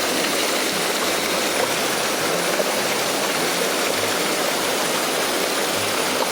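Water of a small waterfall rushing steadily.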